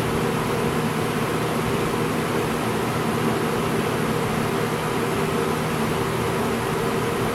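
1989–90 Lasko model 3713 20-inch box fan running steadily: an even rush of air over a low motor hum.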